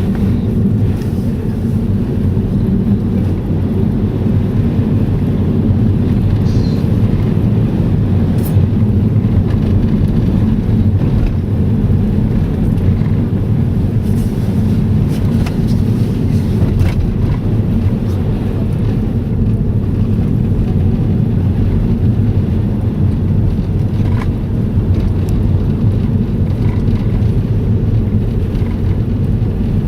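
Steady low rumble of a vehicle on the move, unbroken and even in level, with a few faint ticks above it.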